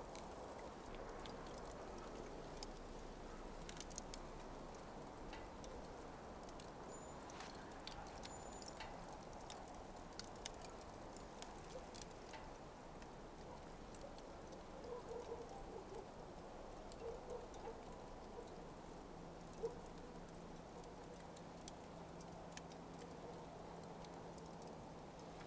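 Smouldering coals crackling faintly: scattered small ticks and pops at irregular intervals over a soft, steady hiss.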